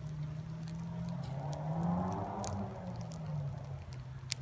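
Wood fire burning inside a ring of green-wood stakes, with a fatwood core catching, giving off a few sharp, isolated crackling pops, the loudest near the end. Under it runs a low steady hum that swells slightly midway.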